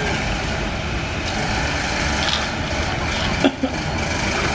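Steady low background rumble with a short sharp click about three and a half seconds in.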